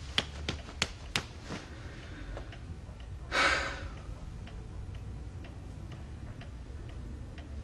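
A clock ticking steadily in a quiet room, with a run of sharper clicks in the first second and a half and a brief breathy rush about three and a half seconds in.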